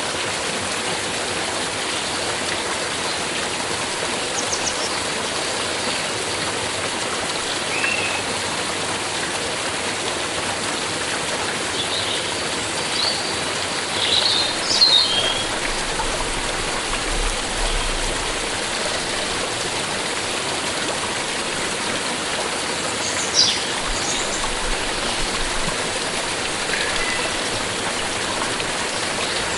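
A stream of water flowing and splashing in a steady rush. Birds call in short chirps now and then, with a cluster of calls about halfway through and another near the end.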